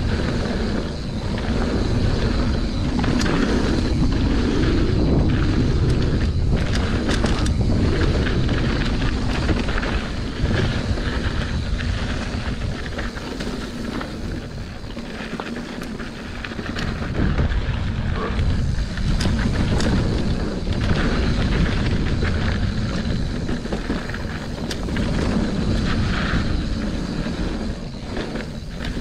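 Wind buffeting the microphone of a mountain bike's ride-along camera on a fast dirt-trail descent, with tyres rolling over the trail and scattered clicks and rattles from the bike. The rush swells and eases in waves.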